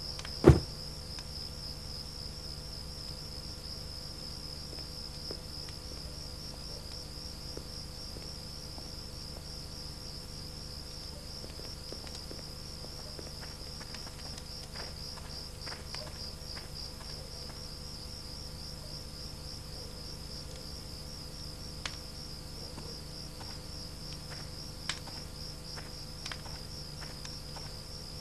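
Crickets trilling steadily, a fast pulsing chirp that does not let up. A single sharp, loud knock sounds about half a second in, and a few faint clicks follow later.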